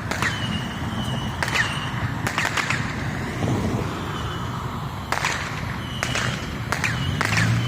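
Fireworks popping: about eight sharp cracks at irregular intervals, over a steady low hum.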